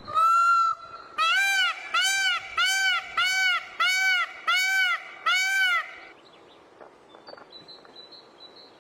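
A peacock calling: one drawn-out call, then a run of seven short arched honking calls at an even pace of about one and a half a second, stopping about six seconds in.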